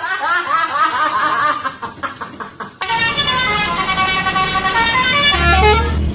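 Multi-tone telolet bus horn playing a melody: quick warbling, sliding notes for the first few seconds, then, starting abruptly, a run of held notes that step up and down in pitch.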